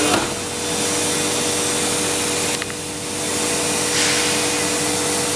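Biesse Rover 27 CNC machining centre running: a loud, steady whooshing noise with two steady hum tones underneath, dipping briefly about halfway through and swelling again near four seconds.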